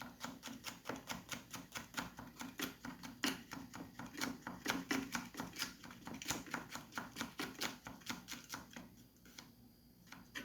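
Knife chopping red pimento peppers on a cutting board: rapid, even strokes about four or five a second, stopping about nine seconds in.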